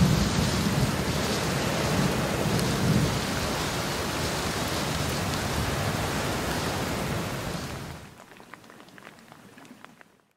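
Steady rain falling on a mountain meadow, with a low rumble in the first few seconds. About eight seconds in it drops to faint scattered drips, then cuts off.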